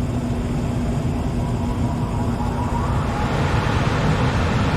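Gas furnace running: the steady hum and rush of its fan motor, which grows louder and brighter about three seconds in.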